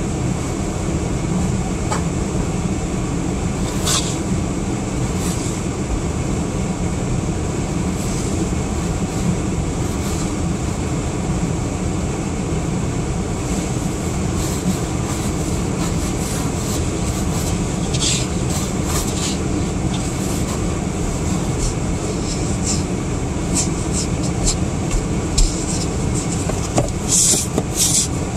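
Steady low rumble of a car running, heard from inside the cabin, while its snow-covered windshield clears. Scattered short clicks and taps come in about halfway through and cluster near the end.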